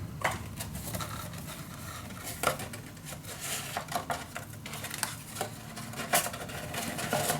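Cardstock lid being fitted onto a paper explosion box: light taps, clicks and paper-on-paper handling sounds.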